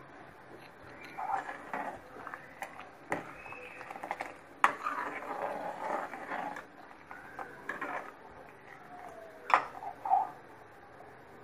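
Thick vegetable soup simmering in a pan on a gas stove, with irregular bubbling plops and a few sharp pops or clinks.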